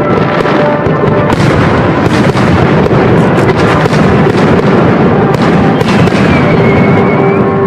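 Aerial firework shells bursting one after another: many bangs and crackles in quick succession, with no pause.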